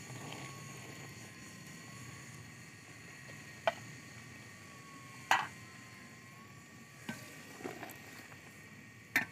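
Apple pieces in sugar syrup bubbling in a large aluminium pot, a steady low hiss, with several sharp clinks of a metal slotted spoon against the pot, the loudest about five seconds in.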